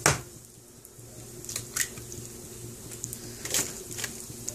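A raw egg cracked with one sharp tap on the rim of a bowl, then its contents dropping into the bowl, with a few small shell clicks after. A low steady hum runs underneath.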